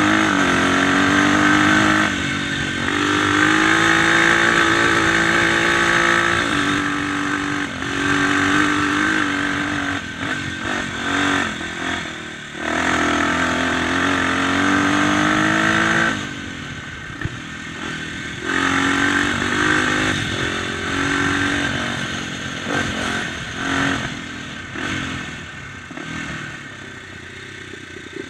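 Dirt bike engine running under way, its pitch rising and falling as the throttle is opened and closed. It eases off and goes quieter about two-thirds of the way through and again near the end.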